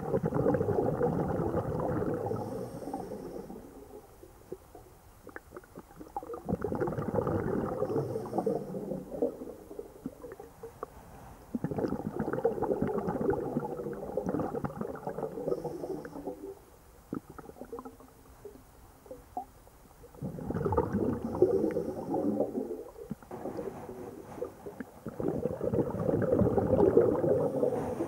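A scuba diver's exhaled bubbles heard underwater: a gurgling rush of bubbles from the regulator in five separate breaths, each lasting a few seconds, with quiet pauses between them.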